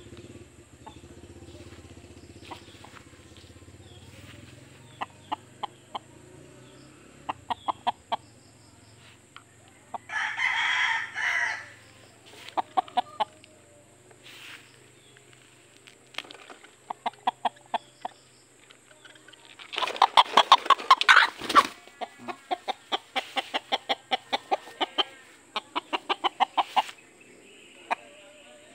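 Native rooster clucking in quick runs of short, evenly spaced notes, with two long crows about ten and twenty seconds in, the second the loudest.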